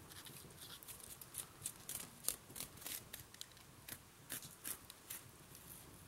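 Fibers being stripped by hand from a crushed pita leaf: faint, irregular short rips and crackles.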